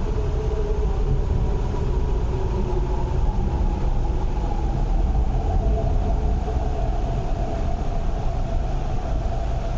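Electric MTR East Rail Line R-train heard from inside the car as it runs in along the platform, with a steady low rumble and a motor whine that slowly falls in pitch as the train slows.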